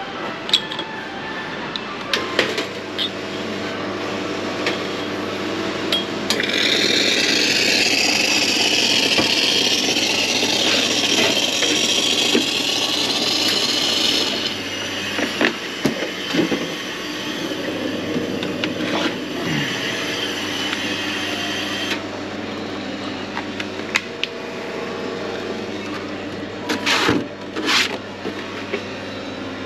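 Espresso machine steam wand hissing steadily for about eight seconds, with clinks of metal milk jugs and cups around it. Two short blasts of steam come near the end.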